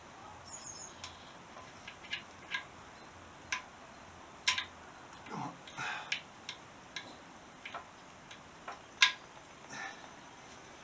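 Scattered light clicks, taps and knocks of hand tools and metal parts being handled while working on a motorcycle, irregular and of varying loudness, with two sharper clicks about four and a half and nine seconds in.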